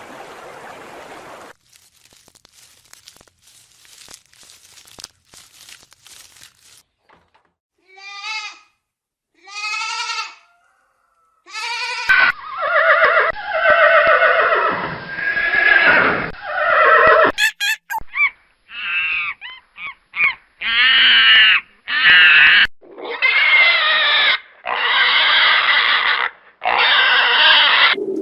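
Farm animals calling. First a few faint clicks, then two short calls, then a long run of loud repeated calls about a second each.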